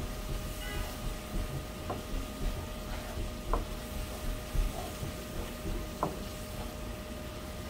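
Wooden spatula stirring and scraping a thick onion-and-spice masala in a nonstick frying pan, with a light sizzle, three sharp clicks, and a steady faint hum underneath.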